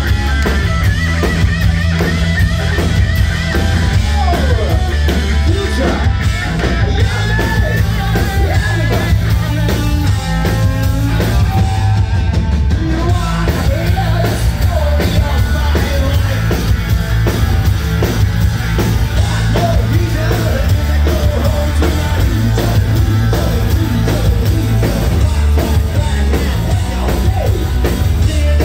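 Live punk rock band playing loud: distorted electric guitars, bass and a drum kit, with a singing voice over them, heard from inside the audience with a heavy bass boom.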